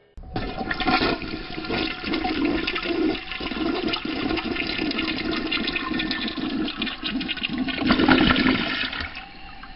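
Rushing, gurgling water, swelling about eight seconds in and then fading away.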